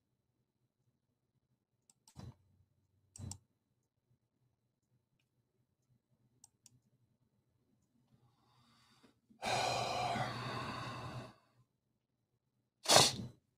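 A person's breath noises close to the microphone: a few faint short breaths, a long sigh lasting about two seconds from about ten seconds in, and a short, sharp, louder breath near the end.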